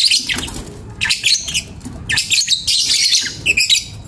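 Fischer's lovebirds calling: shrill, high-pitched chattering squawks that come in four or five quick bursts.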